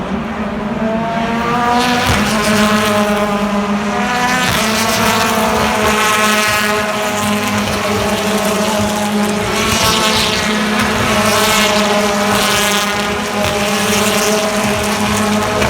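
BTCC touring cars' turbocharged four-cylinder engines at full throttle, the pitch climbing and dropping back several times as they change up through the gears, with a steady low drone underneath.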